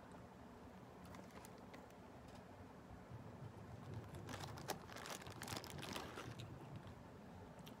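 A thin plastic bag of fries crinkling as a hand rummages in it, a dense run of crackles for about two seconds starting about four seconds in, after scattered faint clicks.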